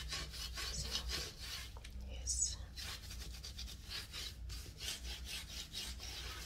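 A wet cleaning pad scrubbing the shower's caulk joints in quick back-and-forth strokes, about four a second.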